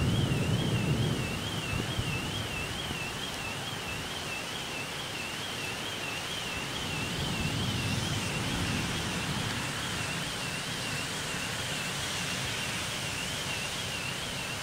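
Heavy rain pouring steadily, with a car alarm warbling up and down in pitch about twice a second. Low rumbling swells near the start and again about halfway.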